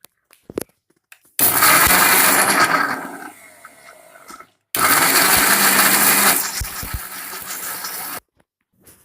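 Electric mixer grinder running in two pulses of about three seconds each, grinding garlic, chillies, cumin, fenugreek, onion and tomato into a wet gravy paste. Each pulse starts suddenly, gets quieter partway through and cuts off abruptly.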